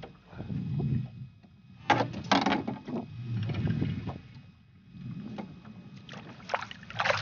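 Water and wind rumbling low around a small fishing boat, with a cluster of sharp knocks and rattles of gear against the boat about two seconds in and again near the end, as the landing net is brought out.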